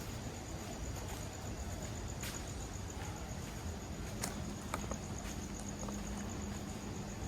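Insects, likely crickets, trilling in a fast, even, high-pitched pulse over a steady rushing background, with a few sharp clicks.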